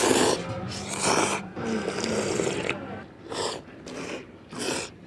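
A person slurping noodles: one long noisy slurp, then three short slurps in the second half.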